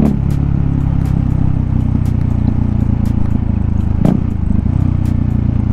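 KTM RC 390's single-cylinder engine running steadily and loud with its muffler removed, heard from on board the moving bike. About four seconds in there is a brief sharp sound and a short dip in the engine note.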